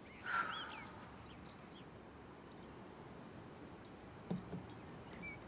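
Faint birdsong, a few small chirps. There is a short soft hiss about a third of a second in, and a few light taps about four seconds in.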